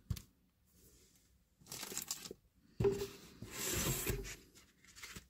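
Clear plastic packaging crinkling and rustling in the hands in short scattered bursts, with a sharp knock a little past the middle.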